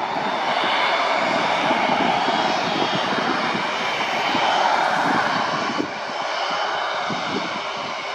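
Jet engines of a JetBlue Airbus A320 running at low thrust as the airliner taxis on the runway: a steady roar with a high whine over it, easing slightly about six seconds in.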